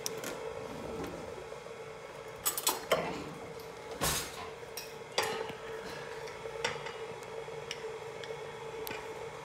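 Kitchen clatter: a handful of scattered clinks and knocks of containers, a lid and utensils on a granite countertop while powdered sugar is poured into a stand mixer bowl, over a faint steady hum.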